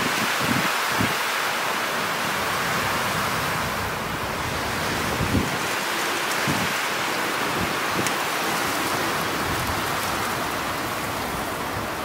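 Strong wind blowing steadily through tall pine trees, with occasional low gusts buffeting the microphone.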